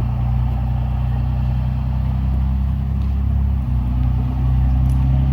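An engine idling steadily, a low hum that gets a little louder about four seconds in.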